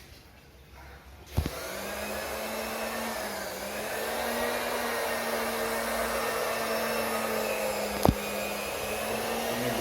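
An electric fan is switched on with a sharp click and its motor runs up to a steady whir of moving air with a low hum. A second click comes near the end while it keeps running.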